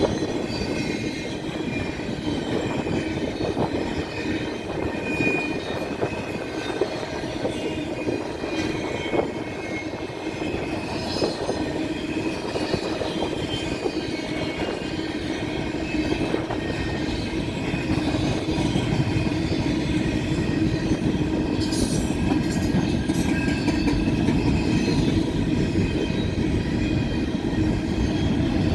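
BNSF intermodal freight train's double-stack and piggyback cars rolling past: a steady rumble with clickety-clack of wheels over the rails and faint, steady wheel squeal. It grows somewhat louder about two-thirds of the way through.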